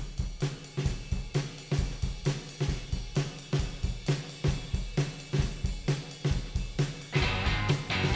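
Rock drum kit starting a song alone with a steady beat of bass drum, snare and hi-hat; electric guitar and bass guitar come in about seven seconds in.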